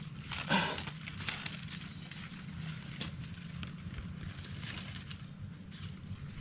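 Dry leaf litter and twigs rustling and crackling faintly as hands rearrange them on the forest floor, with one louder crackle about half a second in.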